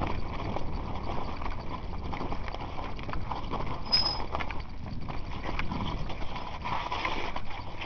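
Mountain bike clattering and rattling over rocks and loose gravel on a fast, technical descent: irregular knocks from the bike over a steady rushing noise, with a short high squeal about four seconds in.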